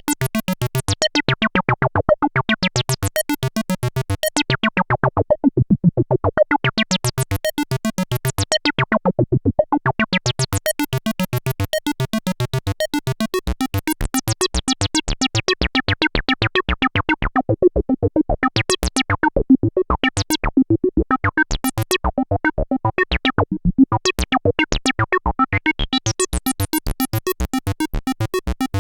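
Arturia MicroFreak playing a sequenced acid bassline: a fast, even run of short notes with a resonant filter sweeping open and closed every few seconds, giving a squelchy tone.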